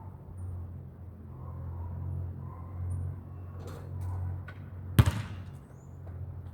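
A basketball strikes hard once, a sharp single impact with a short ring, about five seconds in, after a few lighter knocks, over a steady low hum.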